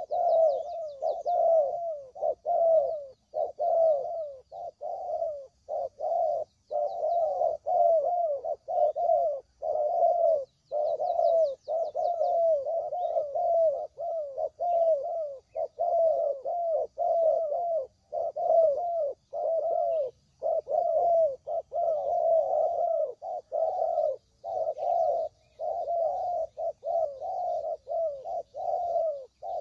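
Spotted doves (tekukur) cooing over and over, the phrases running into one another with only short breaks: a lure call for trapping the birds. Faint, high chirping of small birds sits behind it, clearest at the start and about eleven seconds in.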